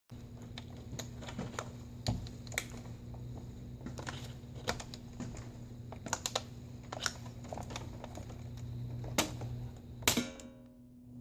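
Irregular light plastic clicks and taps from laptop screen parts being handled and pried, over a steady low hum. Near the end comes a louder clatter that rings briefly.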